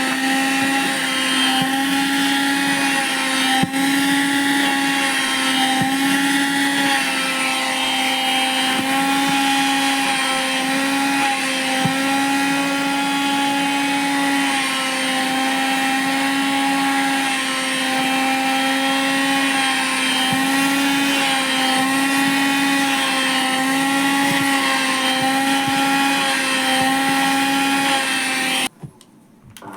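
Vacuum cleaner motor running steadily with a high whine, its pitch wavering slightly as it sucks at denim jeans. Near the end it cuts out abruptly, then starts up again with a rising pitch as the motor spins back up.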